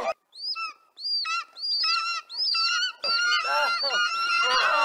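Repeated shrill bird screeches, short rising-and-falling calls several a second, from a film's bird-attack sound effects. About three seconds in, people screaming and moaning join them.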